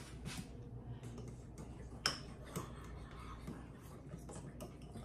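Faint, light ticks and scrapes of a spoon stirring pancake batter in a glass mixing bowl, with one sharper click about two seconds in.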